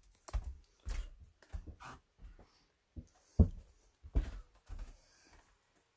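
Footsteps on a wooden floor: uneven dull thumps, about two a second, that stop near the end.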